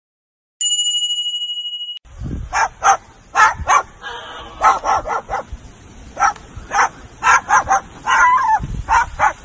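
A bright ringing chime sounds about half a second in and fades out over a second and a half. Then a large white parrot imitates a dog, giving a run of about a dozen short barks.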